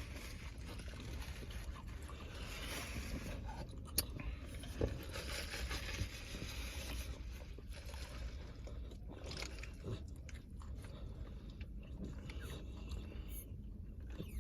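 Chewing and eating sounds close to the microphone, with a utensil scraping in a takeout bowl, over a steady low hum. Two sharp clicks come about four and five seconds in.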